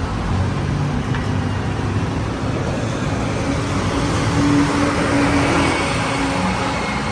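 Busy city road traffic: a steady rumble of cars and buses passing on the street below, swelling in loudness about halfway through as a vehicle goes by.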